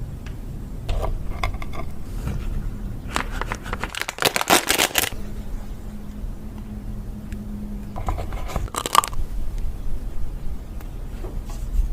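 Close-miked eating of ice cream: bursts of crunching, scraping and crinkling, loudest about three to five seconds in and again around eight to nine seconds in, over a low steady hum.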